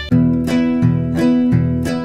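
Background music of plucked string notes, like an acoustic guitar, in an even rhythm of about three notes a second, starting right at the beginning.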